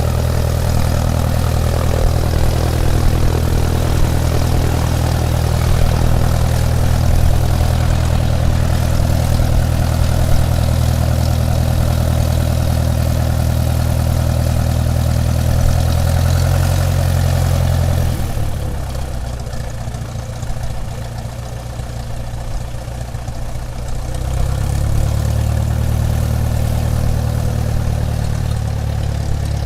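Airplane engines running steadily at taxi power, a deep low hum with a rushing hiss above it. About two-thirds of the way through, the engine note drops and quiets for several seconds, then comes back up.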